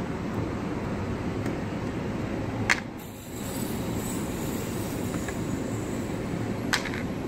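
Steady background noise of street traffic, broken by two sharp clicks about four seconds apart as a bucket and its lid are handled on brick paving.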